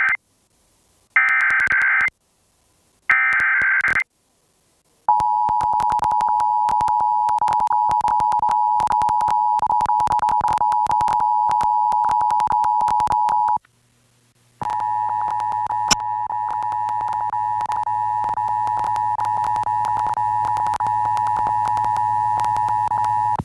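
Emergency Alert System Required Monthly Test signals. First come the last of the first SAME header data burst and two more roughly one-second harsh digital bursts, a second apart. Then the EAS two-tone attention signal sounds steadily for about eight seconds, drops out for a second and resumes for about nine more, with constant crackling clicks over it.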